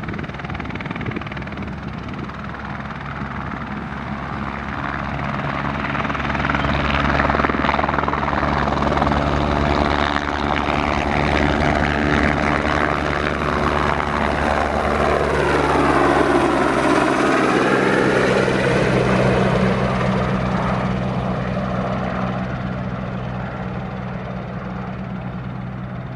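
Airbus H125M helicopter's turbine and main rotor at flight power as it departs, growing louder through the middle with the pitch sweeping as it passes, then fading away near the end.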